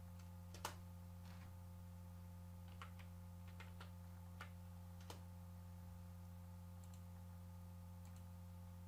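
A few scattered computer keyboard keystrokes and mouse clicks, single sharp taps a second or so apart, over a steady low electrical hum.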